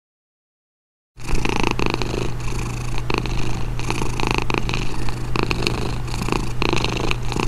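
Domestic cat purring steadily in even swells about twice a second, starting after a second of silence.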